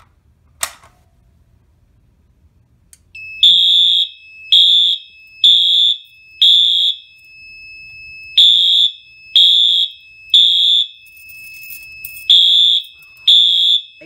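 A Fire-Lite BG12L pull station is pulled with a sharp click. About three seconds later a Wheelock AS horn strobe on the Fire-Lite MS-4 panel starts sounding a loud alarm: half-second horn blasts a second apart in the temporal-three evacuation pattern (a first run of four, then groups of three with a pause between), over a steady high tone.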